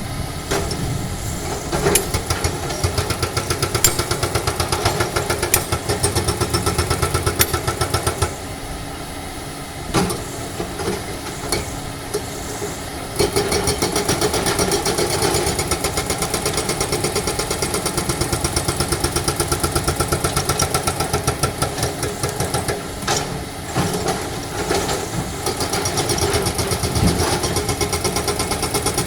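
Excavator with a hydraulic breaker hammering rock, a fast, even pounding over the running diesel engine. The hammering stops for a few seconds about a third of the way through, leaving a few single knocks, then starts again.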